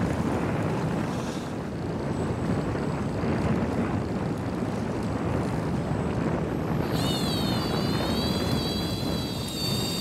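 Steady rumble of a fishing boat's engine mixed with wind on the microphone and the sea. About seven seconds in, a high wavering whine joins and runs on.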